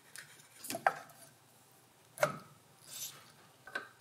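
Allen key clicking and knocking against a cap screw and metal as a holster is fastened to a CNC router's spindle mount: a few sharp clicks about a second in, two seconds in and near the end, with a short scrape around three seconds.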